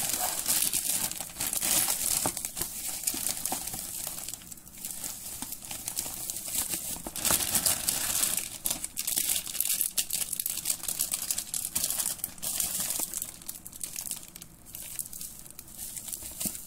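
Plastic packaging crinkling and rustling in irregular bursts as a black tamper-evident plastic mailing bag is opened and an item in clear plastic wrapping is handled and unwrapped.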